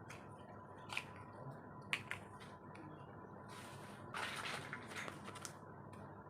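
Miniature toy kitchen pieces being handled: a few soft clicks and taps, then a rustling stretch of a couple of seconds about midway.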